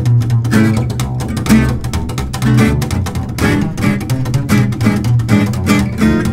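Gypsy jazz played by an acoustic quartet: plucked upright double bass to the fore, with steady on-the-beat chord strokes from Selmer-style acoustic guitars.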